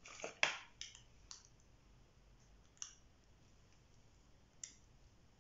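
Sharp plastic clicks and taps from handling a smartwatch and its magnetic charger: a quick cluster in the first second and a half, then single clicks near the middle and toward the end.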